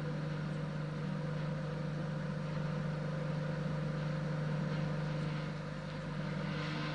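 Steady mechanical hum with a rushing noise from the rail transporter rolling the Soyuz rocket out horizontally, one low tone held throughout.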